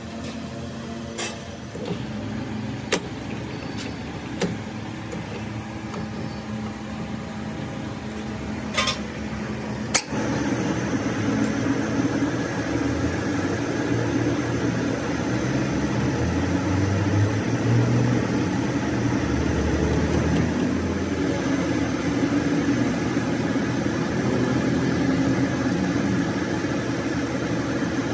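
Metal lathe running with a truck spindle spinning in the chuck, with a few sharp clicks in the first ten seconds. About ten seconds in the sound gets louder and a thin steady high whine sets in as a centre drill in the tailstock chuck cuts into the end of the spinning spindle.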